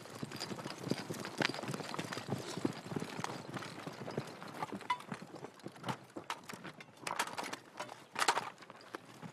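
Many pairs of army boots running over hard, dry ground, a dense patter of footfalls with equipment rattling and knocking as it swings. Near the end a few louder scraping strikes come as entrenching spades dig into dry earth.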